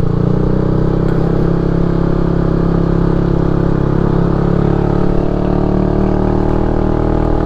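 Motorcycle engine running at a steady speed with an even drone.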